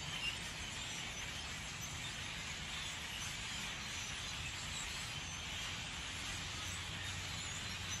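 A large flock of birds chattering at a distance, blending into a steady wash of sound, over a steady low hum.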